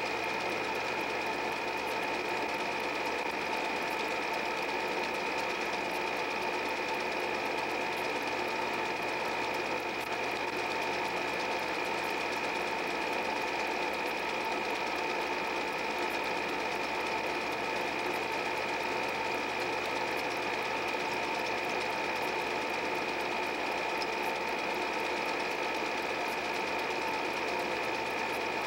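8 mm film projector running steadily: a constant mechanical whir with steady whining tones over a hiss.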